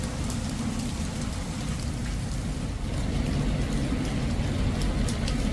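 Steady rain falling, with scattered sharp drop ticks over a constant low rumble.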